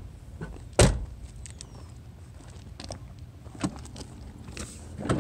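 Rear door of a Mercedes-Benz Metris van swung shut with one loud thud about a second in, followed by a few faint clicks.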